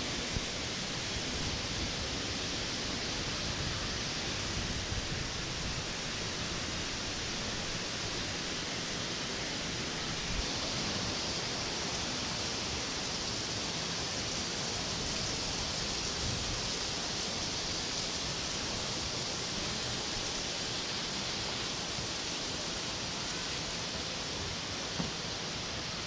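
Steady rushing water noise from a lazy river, picked up by a camera held at the water's surface. The hiss brightens a little about ten seconds in.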